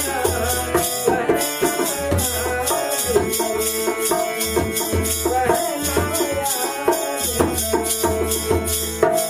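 Folk bhajan accompaniment: a harmonium holding chords, a dholak beating a steady rhythm, and a kartal's metal jingles shaken on each beat.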